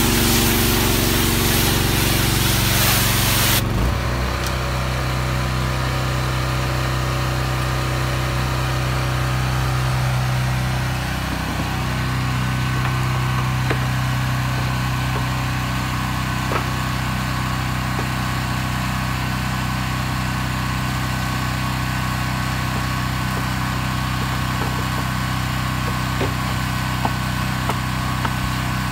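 Pressure-washer spray hissing for about the first four seconds, then cutting off suddenly, leaving an engine running steadily. A few faint knocks come near the end.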